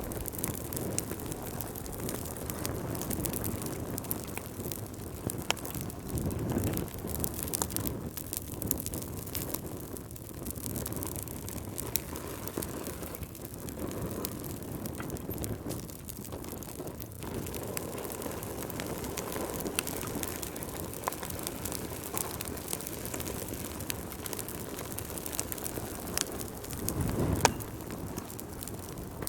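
Wood fire burning in a fireplace: a steady low rush of flame with frequent sharp crackles and pops, swelling briefly about six seconds in and again near the end.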